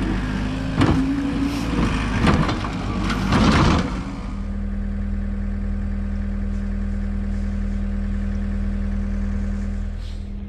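A large engine running steadily, with several loud clanks and knocks in the first four seconds, then the engine alone.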